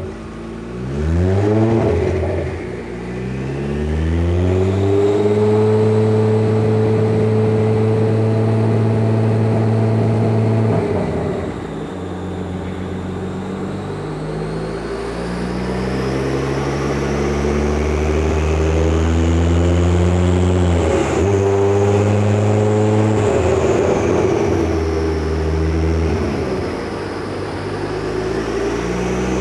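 Kia Stinger 3.3-litre twin-turbo V6 running on a chassis dyno in a small setup pull. It revs up quickly, holds a steady speed for several seconds, drops back, then climbs again in steps.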